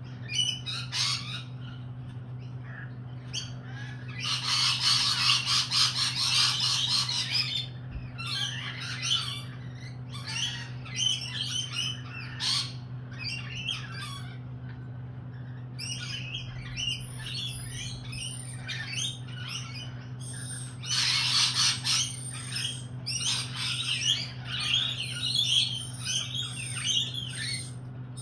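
Lorikeets calling with harsh, raspy chatter, in many short calls and two longer, louder bouts about four to seven seconds in and around twenty-one seconds in. A steady low hum runs underneath.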